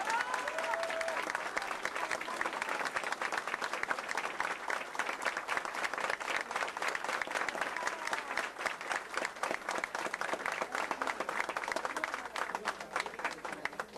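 Crowd applauding with steady, dense hand clapping that tapers off near the end.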